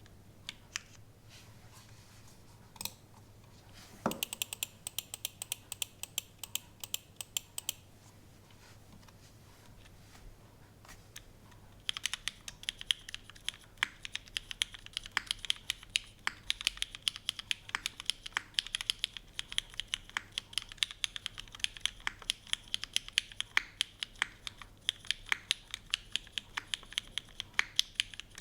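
Typing on a gasket-mount polycarbonate Kohaku mechanical keyboard with an aluminium plate, lubed and filmed Cherry MX Black linear switches and GMK doubleshot keycaps. A few stray clicks and a short run of keystrokes come first; about twelve seconds in, steady unhurried typing starts at about four or five keystrokes a second.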